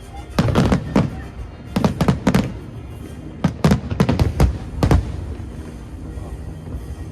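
Aerial fireworks bursting: three quick volleys of sharp bangs in the first five seconds, then a lull.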